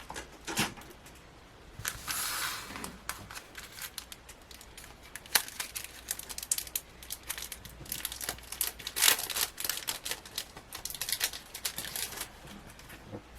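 Crinkling and rustling of packaging and paper being handled, with many small clicks and taps and two longer rustles about two and nine seconds in.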